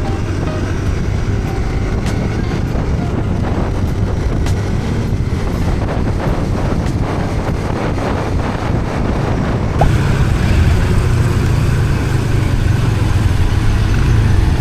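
Motorcycle engine running with wind noise on the microphone, a steady low rumble. About ten seconds in it turns deeper and fuller.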